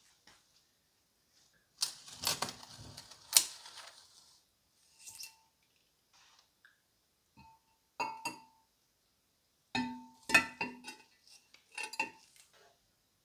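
Handling noise from a large glass jar and a metal clamp on a wooden table: knocks as the jar is set down, then several groups of clinks of metal against the glass, each with a short ringing tone.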